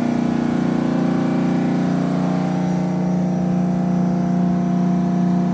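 Detroit Diesel 12V71 two-stroke V12 diesel engine of a 425 kW generator set, running steadily at its governed 1800 rpm with no electrical load, a steady drone.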